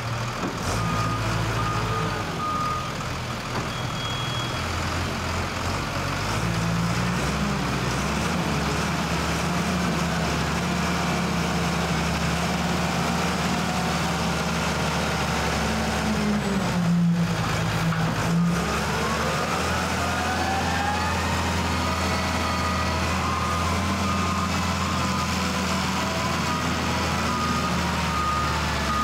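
Wheel loader's diesel engine running under load as it works earth, its revs climbing about a quarter of the way in and again with a rising whine about two-thirds through. A reversing alarm beeps near the start and again near the end.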